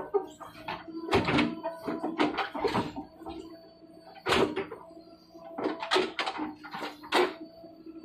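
JCB Eco Xpert backhoe loader's bucket scraping and breaking into hard shale, with repeated irregular crunches and clanks over a steady engine hum.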